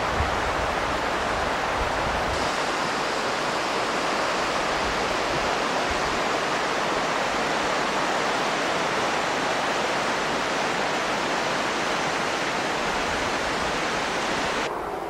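Steady rushing of river water, an even hiss that grows brighter about two seconds in and cuts off just before the end.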